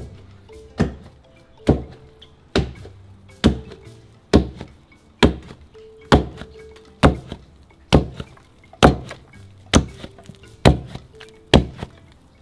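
Wooden pestle pounding fufu dough in a mortar: heavy, even thuds about once a second, with softer knocks between some strokes.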